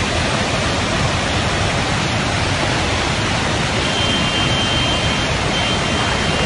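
Loud, steady rush of fast-flowing floodwater. A faint high thin tone comes and goes from about halfway through.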